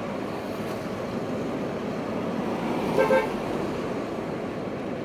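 Car horn tooted twice in quick succession about three seconds in, over steady street traffic noise.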